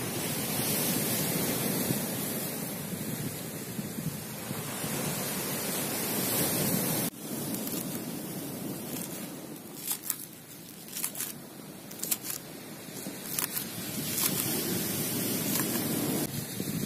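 Sea surf washing on a pebble shore with wind on the microphone. About seven seconds in the sound cuts to close by: a knife chops green onion on a wooden board, an irregular run of sharp taps, with the surf steady behind it.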